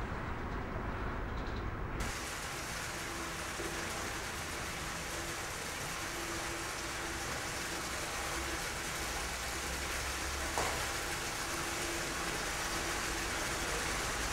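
Water running and splashing steadily in a stone wash-house basin, an even rushing noise that starts abruptly about two seconds in, with a single brief knock a little past ten seconds.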